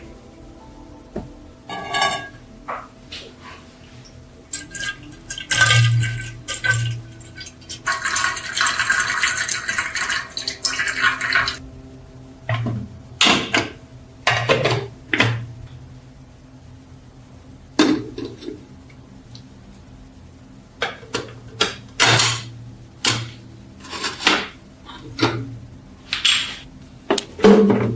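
Metal parts of an antique paint sprayer being handled and set down, a string of sharp clinks and knocks, with a few seconds of hissing around the eight-to-eleven-second mark.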